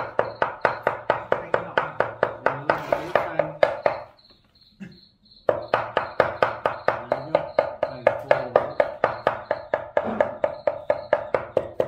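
Cleaver rapidly mincing pork throat and meat on a chopping block, about four blows a second. It pauses for about a second and a half near the middle, then resumes.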